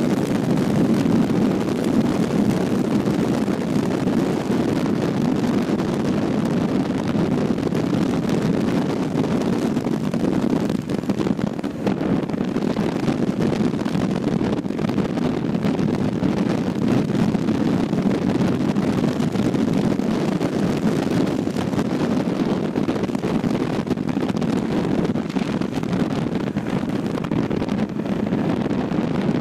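Wind rushing over the microphone mixed with the steady running of a Buell Ulysses XT's air-cooled V-twin engine while the motorcycle cruises along the road. The sound dips briefly about eleven seconds in.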